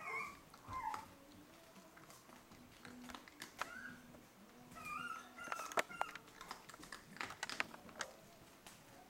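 Papillon puppy eating dry kibble from a bowl: irregular crunching and sharp clicks of kibble and teeth against the bowl, busiest in the middle of the stretch. A few short, high, falling whines come in between the bites.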